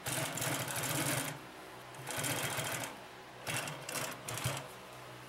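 Consew P2339RB double-needle walking-foot (triple-feed) industrial sewing machine stitching through four layers of material, run in three short bursts with brief stops between.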